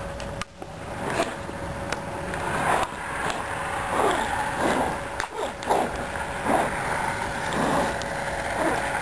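Crunching and scraping of someone moving on his knees over a crust of sleet on top of ice, coming in about half a dozen rough swells over a steady hiss.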